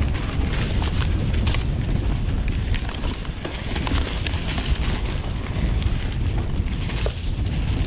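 Wind buffeting the action-camera microphone during a mountain-bike descent, a loud steady rumble. Over it come frequent clicks and knocks as the 2016 Nukeproof Mega 275 rattles over rough singletrack.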